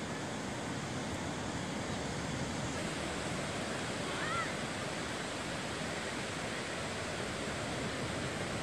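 Steady wash of sea surf breaking on a sandy beach, with a faint short chirp about four seconds in.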